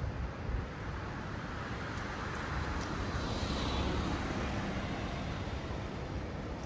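A vehicle passing by: its sound swells about two seconds in, peaks a little past the middle and fades away, over a steady low rumble of city traffic.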